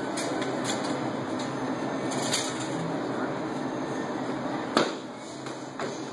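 Steady rumbling room noise with several sharp knocks or slaps. The loudest knock comes just before five seconds in.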